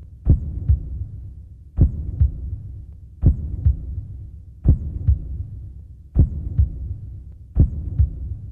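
A slow, deep thumping beat on the soundtrack: a heavy thump followed by two lighter ones, repeating about every second and a half over a low steady hum.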